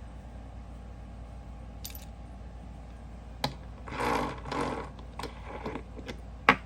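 Metal fidget-spinner parts and a bearing clinking and rattling as they are handled during a bearing swap. A few sharp clicks and a jangling clatter come in after a quiet start, with the loudest click near the end.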